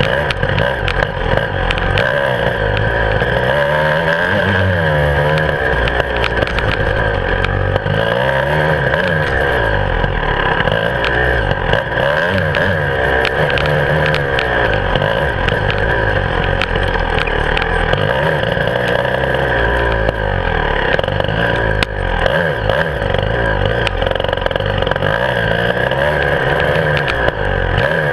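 Beta 300 RR two-stroke enduro motorcycle engine, heard close up from the handlebars, revving up and falling back again and again as the bike is ridden along a dirt track. Frequent clicks and rattles sound over the engine.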